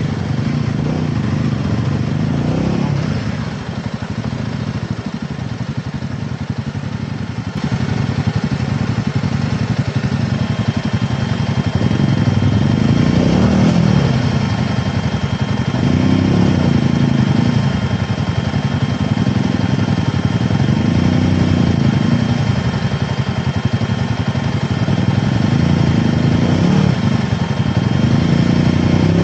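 Royal Enfield Himalayan 450's single-cylinder engine running under changing throttle, its pitch rising and falling every couple of seconds. A thin, steady high whine joins about a third of the way in.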